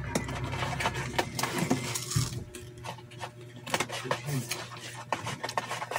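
Scattered scratching and tapping on a cardboard box as a cat paws at it, over a steady low hum.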